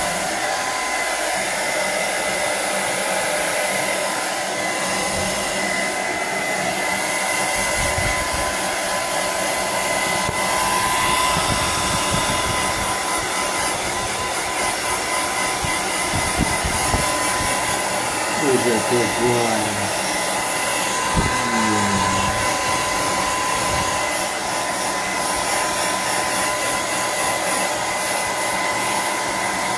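Handheld hair dryer blowing steadily on a wet dog's coat, its motor giving a steady whine over the rush of air. About two-thirds through, two short sounds fall in pitch over it.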